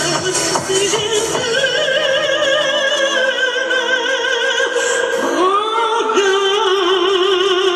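Music with a singing voice holding long notes with a strong vibrato, sliding up into a new held note about five seconds in.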